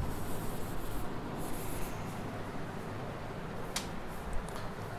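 Faint rubbing and scratching of a cloth and marker on a whiteboard as it is wiped and written on, with a single sharp click about three-quarters of the way through.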